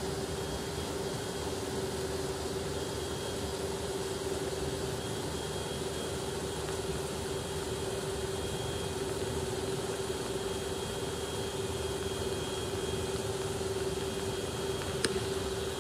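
PowerSpout micro-hydro turbine running: a steady hum over a constant rushing noise, with one sharp click near the end.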